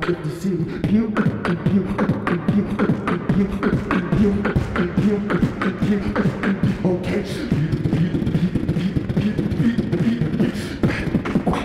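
Live beatboxing into a handheld microphone: rapid vocal drum hits and clicks over a hummed low tone. About seven seconds in the hits thin out while the hummed tone carries on.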